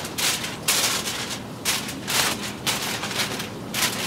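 Sheet of aluminum foil crinkling as it is folded loosely around a rack of ribs, in a series of short, irregular crackling bursts.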